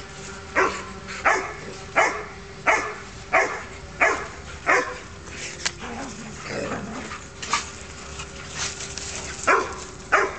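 A dog barking in play: a steady run of loud barks, about one every 0.7 seconds, that thins out midway and picks up again near the end.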